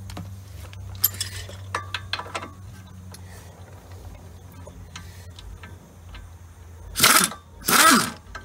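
Light metal clinks of tools on the suspension, then two loud metallic scrapes about a second apart as the control arm bolt is worked out of its bushing. A low steady hum runs underneath.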